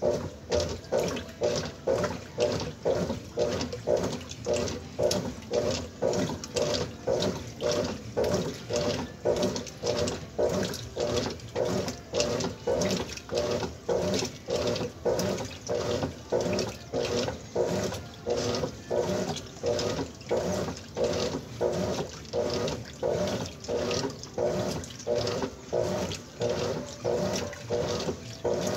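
Top-loading washing machine agitating a wet load: the agitator motor whirs in regular back-and-forth strokes, about three every two seconds, each stroke sloshing the water and clothes.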